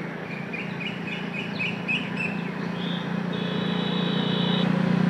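Wind and road noise while cycling on a wet road, with a run of short bird chirps in the first two seconds and a high steady tone held for over a second about three seconds in. A low engine hum grows steadily louder as a motor vehicle approaches.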